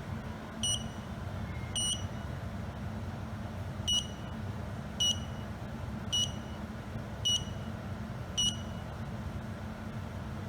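XHouse SGC01 smart garage door controller beeping in Wi-Fi pairing mode: short, high-pitched beeps about once a second, seven in all, stopping about two seconds before the end. A low steady hum runs underneath.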